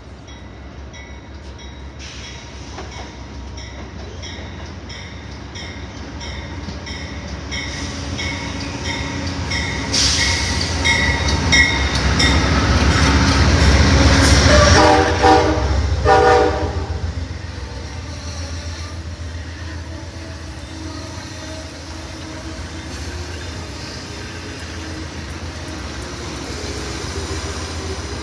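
Amtrak diesel-hauled passenger train approaching and passing close by, its rumble building while a bell rings about twice a second. Near the middle, at the loudest point, the locomotive horn sounds two blasts. The passenger cars then roll past with a steady rumble and wheel clatter.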